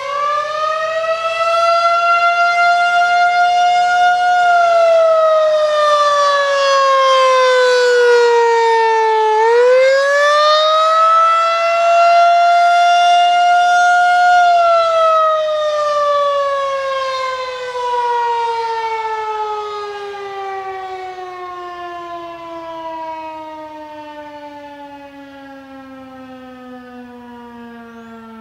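Federal Signal 2001-SRN outdoor warning siren sounding the attack signal, a single wailing tone. It rises and holds, falls, then rises and holds again, and from about halfway through it falls in a long slow glide as the siren winds down.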